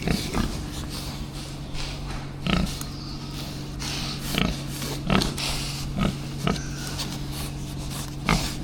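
Pigs grunting, about eight short grunts scattered every second or so, over a steady engine hum.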